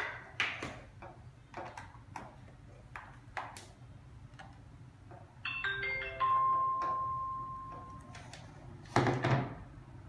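Start-up chime of a wireless rearview mirror monitor as it powers on: a quick run of short electronic notes about five and a half seconds in, then one held tone that fades over about two seconds. Before it, small clicks of cable plugs being handled and connected, and a louder knock near the end.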